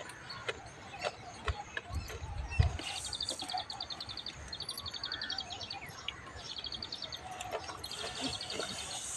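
A bird's rapid high-pitched trill, repeated in short bursts under a second long, several times over, with light clicks from eating out of a steel bowl. A low thump about two and a half seconds in is the loudest sound.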